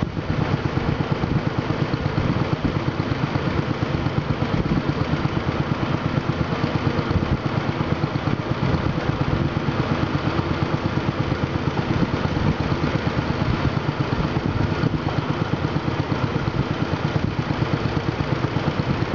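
Long-tail boat engine running steadily with a fast, even pulsing beat.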